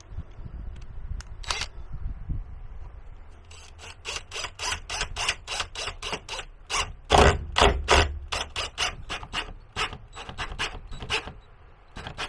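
Rapid, sharp clicking of a tool driving self-tapping screws to fasten a table mount, a few clicks at first and then a long run at about three or four clicks a second.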